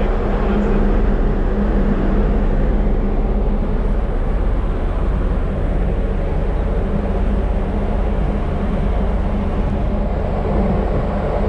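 Car ferry's engines running as the ship turns away from the pier: a steady low drone with a constant hum.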